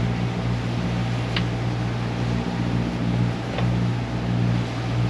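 The catamaran's twin diesel engines running steadily, a low, even hum. Two faint clicks come through, about a second and a half in and again past three and a half seconds.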